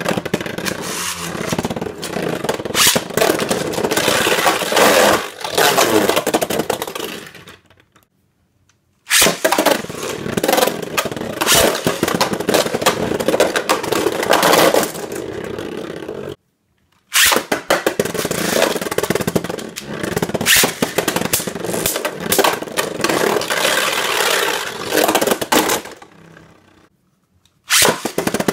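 Buster Xcalibur and Vise Leopard Beyblade Burst tops spinning in a Takara Tomy B-09 stadium, grinding across the plastic floor and clashing against each other and the clear wall. The sound comes in three rounds with dead-silent cuts between them. Each round opens with a sharp clack, and the rattle fades as the tops slow down.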